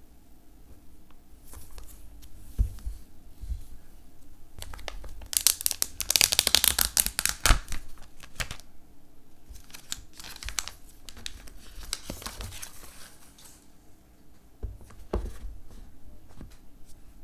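Clear plastic wrap being torn and peeled off a smartphone box, crinkling in bursts that are loudest and densest in the middle. There is a soft knock near the end.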